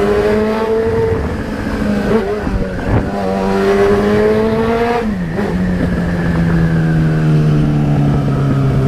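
Yamaha XJ6 motorcycle's inline-four engine under way. Its note rises and dips through gear changes, drops sharply about five seconds in, then holds a steady, slowly falling pitch.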